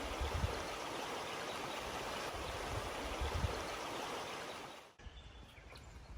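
Steady rushing water of a river or stream, which cuts off suddenly about five seconds in.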